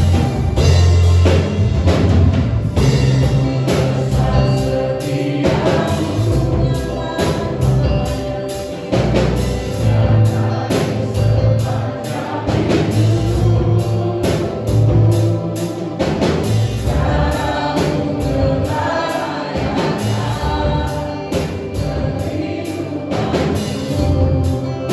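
Three singers on microphones singing a Malay-language Christian worship song over a backing of drums and heavy bass.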